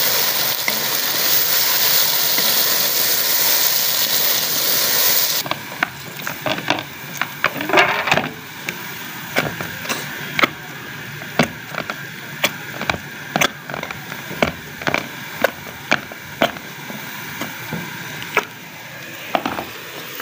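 Chicken, tomatoes and green chillies sizzling as they fry in a pot, which stops suddenly about five seconds in. Then dough is kneaded by hand in a steel tray, with short knocks about one or two a second.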